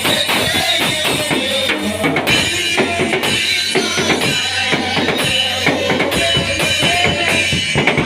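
Live worship band music, with a drum kit keeping a steady beat under keyboard and bass.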